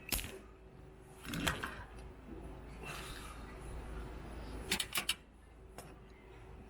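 A few sharp clicks and light clatters of handling on a workbench, one near the start, another about a second and a half in and a quick run of three near the end, over a faint steady hum.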